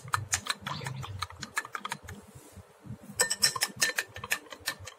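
A metal spoon clinking rapidly against the inside of a drinking glass while stirring coffee, with a brief glassy ring on some strokes. There is a flurry of clinks, a quieter pause about two seconds in, then another quick run of clinks.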